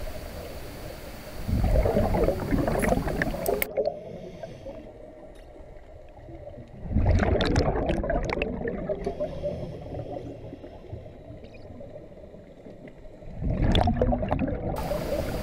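Scuba diver's exhaled bubbles gurgling out of the regulator underwater, three bursts about six seconds apart with quieter stretches between.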